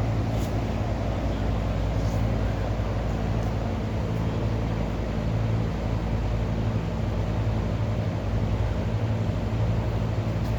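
A steady low mechanical hum from a running motor, even throughout, with a faint hiss above it.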